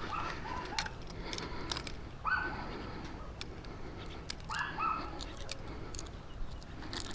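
A few short gull calls: one near the start, one a little over two seconds in and a pair near five seconds in, over a steady low rush of wind.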